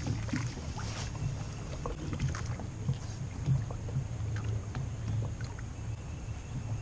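Light knocks and shuffles of someone moving about in a small fishing boat, over a steady low hum.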